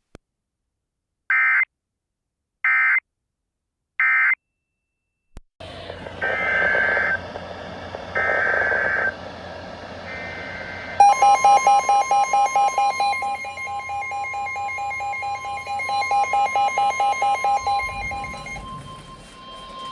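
Emergency Alert System digital data bursts: three short squawks about a second and a half apart, the end-of-message code closing the flash flood warning. After a brief gap, a second alert opens with longer data bursts over room noise. About 11 s in a loud alert tone starts, a steady tone with rapid beeping over it at about four beats a second, and the beeping stops near the end.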